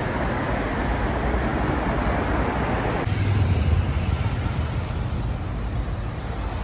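Steady road-traffic noise: a low rumble under a broad hiss, with an abrupt shift in the sound about three seconds in.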